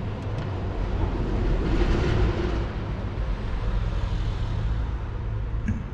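New engine oil running down a flexible funnel hose into the engine's oil filler, a steady rushing noise that swells about two seconds in, over a steady low rumble.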